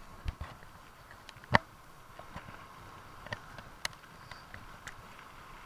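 Mountain bike rattling over a rough trail on a fast descent: irregular sharp knocks and clicks from the bike, the loudest about a second and a half in, over a faint steady rushing hiss.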